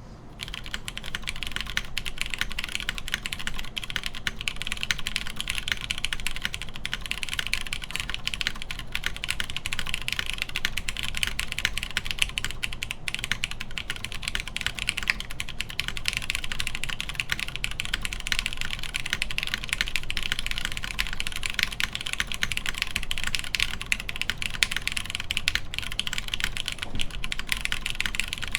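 Continuous fast typing on a mechanical keyboard with lubed Cherry MX Brown tactile switches, an FR4 half plate and GMK keycaps: a dense run of keystroke clicks and clacks.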